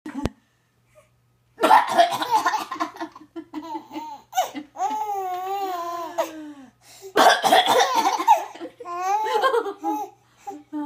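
A woman coughs in short bouts, once about two seconds in and again about seven seconds in. Each bout is followed by a baby's long, wavering peals of laughter.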